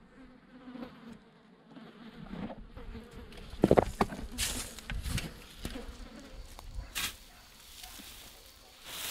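A flying insect buzzing, with a few louder rustles and knocks around the middle.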